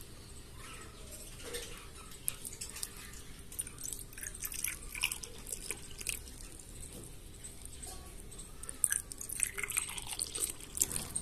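A thin stream of water pours into a small clay pot, a quick patter of drips and splashes. It comes in two stretches, one in the middle and one near the end as a second pot is filled.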